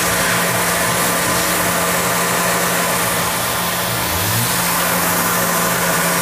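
Tormach PCNC milling machine's spindle running steadily, a constant hum under an even hiss, as an end mill traces the wall of an aluminium fixture pocket. It is taking an extremely light cut and barely removing any material.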